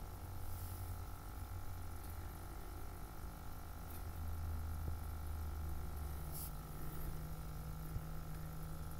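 Steady low machine hum with a faint, even, water-like hiss, from a small motor running in the room. A single short, light click about six and a half seconds in.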